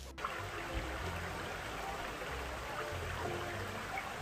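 Running water splashing steadily, starting abruptly just after a brief drop-out at the very beginning.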